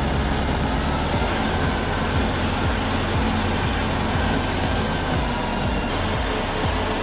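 Stump grinder running steadily, its engine under load as it grinds.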